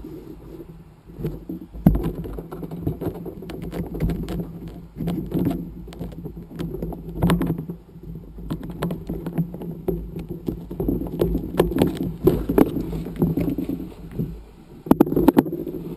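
Close handling noise of a kite bar's safety-release assembly being worked by hand: irregular clicks and knocks of its plastic and metal fittings against the tabletop, with the rustle of lines, over a low steady rumble.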